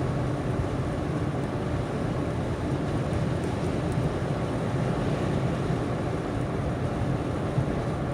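Steady road and engine noise of a car driving along a highway.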